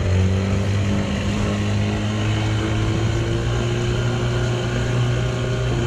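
A boat's motor running steadily with a low hum, its pitch rising slowly over the first few seconds and then holding.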